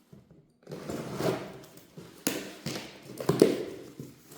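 Packaging and parts being handled: rustling, then a run of sharp knocks and taps, the loudest about three and a half seconds in.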